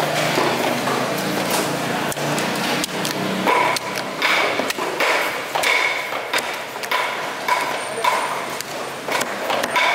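Large fish-cutting knife striking a wooden chopping block: a run of sharp chops. From about a third of the way in, most blows leave a short metallic ring, roughly one to two a second.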